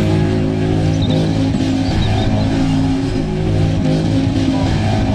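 A Jeep off-road vehicle's engine running hard as it drives over dirt, a steady engine note with a rough haze of tyre and gravel noise.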